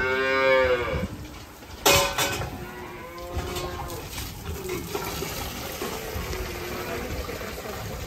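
Holstein calf mooing: one loud, arching call about a second long at the start, and a fainter second call around three seconds in. A sharp knock comes just under two seconds in.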